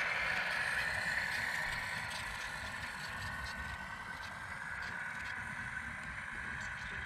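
Radio-controlled model truck driving past and away, its motor giving a steady whine that drops slightly in pitch after about a second.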